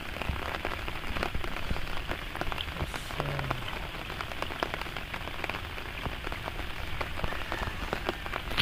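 Steady rain falling on the standing water of a flooded rice field, an even hiss dotted with many separate sharp drop ticks.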